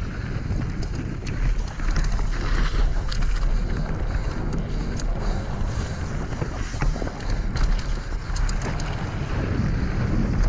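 Wind rushing over an action camera's microphone as a mountain bike descends a gravel trail at speed, with tyres crunching on loose stones and many short clicks and rattles from the bike, densest about halfway through.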